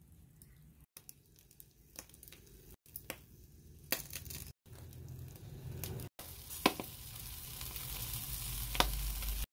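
Catfish sizzling on a wire grill over hot charcoal, with sharp pops and crackles. The sizzle builds and is loudest near the end, as the fish browns and smokes.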